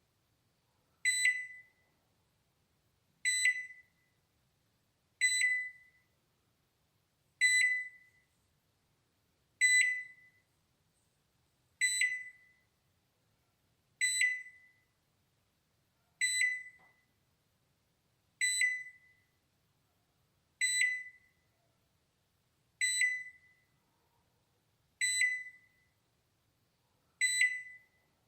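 Balay microwave oven's alarm beep: a single high tone with a sharp start and a quick fade, repeating evenly about every two seconds.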